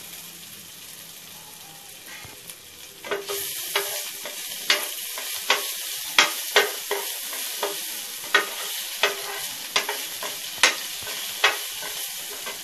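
Ginger-garlic paste sizzling in hot oil in a kadai. From about three seconds in, a steel spatula stirs it, knocking and scraping against the pan about one and a half times a second.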